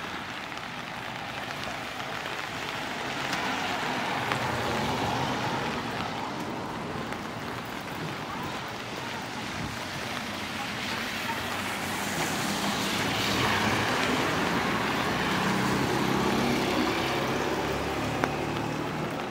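Cars passing on a wet street: tyre hiss swells about four seconds in, then again from about twelve seconds with a low engine hum, before fading.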